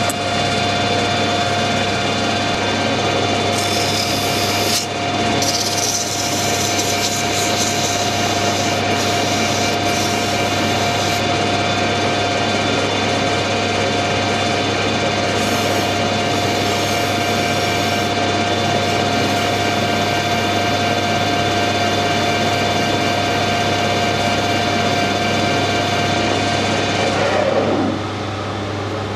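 Small metal lathe running with a steady whine, with bursts of high hissing noise from the tool working the brass part. Near the end the lathe is switched off and its whine falls in pitch as it spins down.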